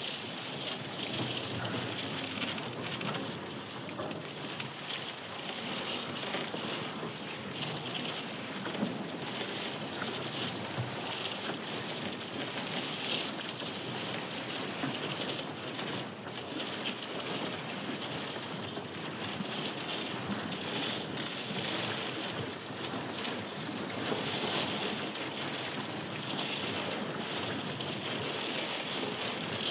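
Dense, steady crackling made from a recording of thawing pond ice sheets cracking and breaking over a rock, processed by computer into a continuous texture of fine clicks.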